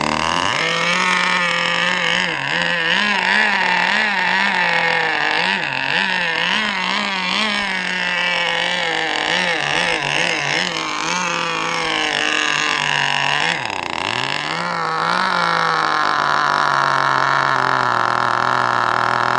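K&B vintage nitro RC outboard engine running loud, its speed wavering up and down, then dipping sharply about two-thirds of the way through and running steadier at a lower pitch. The uneven running is from the fuel mixture being set way too rich.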